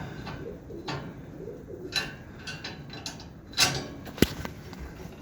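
Scattered knocks and rattles of handling in a barn, the loudest a sharp knock about four seconds in that rings briefly, over a low wavering sound in the first two seconds.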